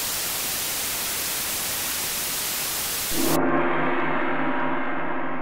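Intro sound effect: a steady static hiss for about three seconds, then a switch to a sustained, gong-like ringing of several steady tones.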